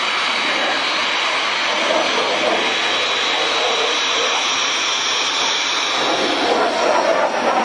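Jet noise from a MiG-29's twin Klimov RD-33 turbofans passing in flight: a steady, dense rushing sound with a faint high whine over it, growing fuller and a little louder near the end.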